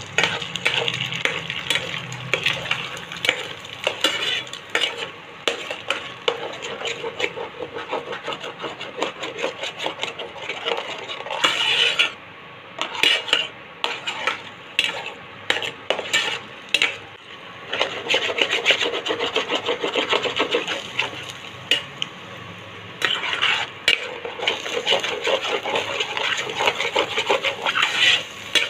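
Eggs sizzling in a hot pan while a spatula stirs and breaks them up, with repeated scrapes and knocks against the pan.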